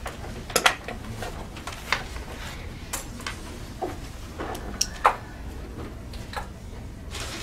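Papers being handled and small objects set down on a conference table: scattered rustles and light clicks, with a few sharper knocks near the start and about five seconds in.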